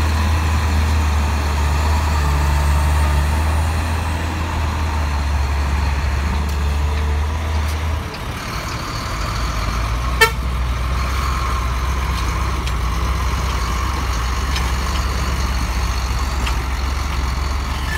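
Heavy diesel engines of trucks and an excavator running steadily. A concrete mixer truck's low drone drops away about halfway through, leaving a lighter engine drone from the excavator and a dump truck. One sharp knock comes a couple of seconds after the change.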